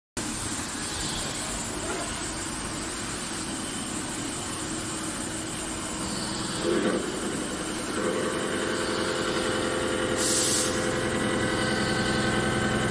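CNC lathe with a high-speed thread-whirling head, running with a steady machine hum. About eight seconds in, a steadier whine of several even tones comes in and holds, and a short hiss follows a couple of seconds later.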